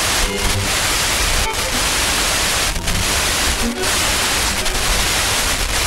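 FM radio receiver tuned to an empty channel, hissing with steady static. The hiss dips briefly several times as snatches of a distant station break through, the sign of lightning scatter briefly propagating the signal.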